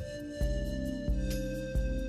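Background music: a calm instrumental track of sustained notes over a regular low beat.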